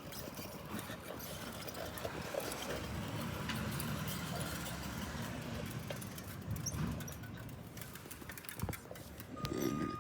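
Garbage truck engine running, with scattered clicks and knocks. Near the end its reversing beeper starts.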